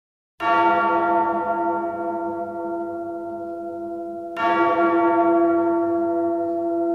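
A deep bell tolls twice, about four seconds apart, the first stroke about half a second in; each stroke rings on with many overtones and slowly fades.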